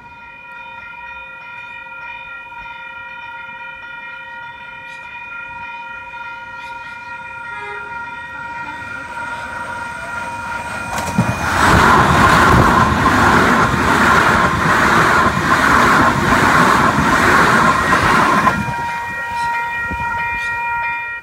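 Level crossing alarm ringing at a steady pitch while an electric intercity train approaches and passes. The train's rush builds, then is loud with rhythmic wheel beats for about seven seconds from about 11 s in, and the alarm rings on after it.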